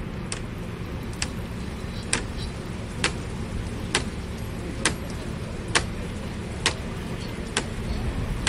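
Street background with a steady traffic rumble, crossed by a sharp tick that repeats very evenly, a little faster than once a second.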